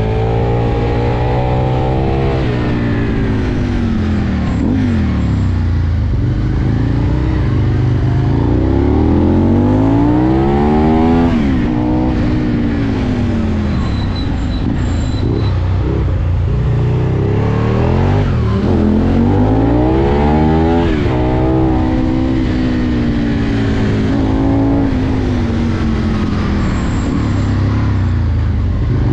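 Aprilia Tuono V2 motorcycle engine heard from the rider's seat, its pitch climbing for several seconds as it accelerates and then falling away as it slows, again and again through a run of bends, over a steady rush of wind.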